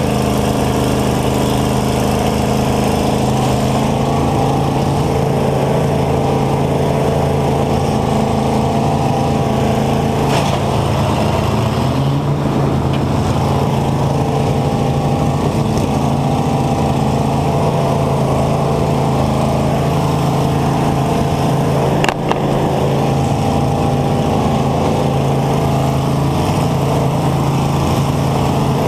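A demolition-derby combine's engine running hard and steady, heard from inside its cab, its pitch stepping up slightly about twelve seconds in. Two sharp knocks cut through, about ten seconds in and again about twenty-two seconds in.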